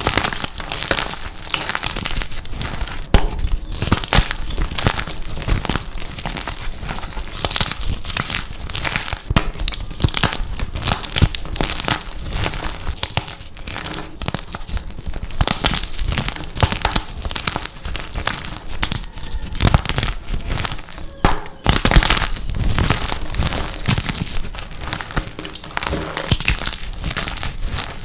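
Dyed gym chalk being crushed and crumbled, a dense, continuous run of crunching and crackling.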